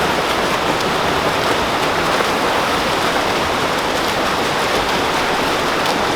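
Steady rushing and splashing of water in a swimming pool during lap swimming, an even hiss with faint patters.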